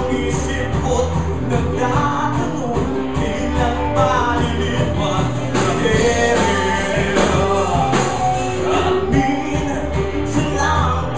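Live alternative rock band playing: a male lead singer singing into a microphone over electric guitars, bass and a drum kit, loud and steady throughout.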